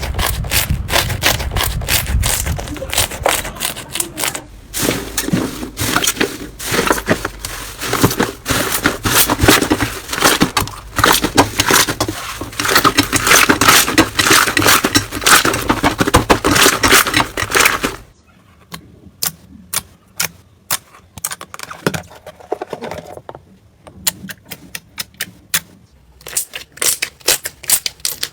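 Slime being squeezed and pressed by hand, giving dense, loud crackling and popping; about two-thirds of the way through it drops suddenly to quieter, scattered sharp pops and clicks.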